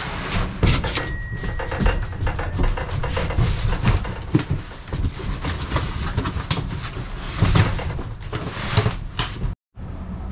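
Large cardboard boxes being shifted around a plywood-walled trailer: repeated knocks, thumps and cardboard scraping as they are dragged, tipped and set down.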